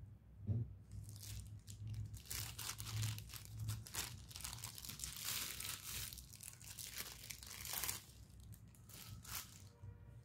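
Clear plastic packaging crinkling and rustling as it is handled and torn, in a dense run of rustles that dies down near the end. A sharp knock comes about half a second in, most likely a stainless-steel piece of the mortar and pestle set touching down.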